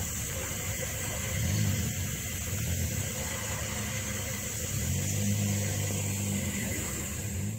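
Natural gas escaping from a gas line broken by a flood washout: a steady rushing roar with a low rumble that swells and eases.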